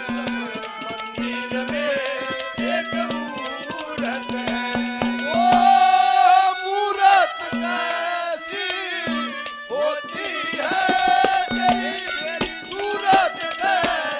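Live Haryanvi ragni music. Harmonium and hand drums play a quick, busy rhythm, and a high melody is held in long, wavering notes about halfway through and again near the end.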